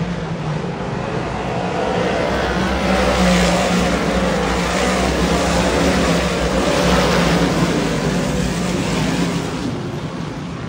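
A pack of dirt-track modified race cars running hard around the oval, their V8 engines a steady, loud drone. It swells as the cars sweep past in the middle and eases off near the end.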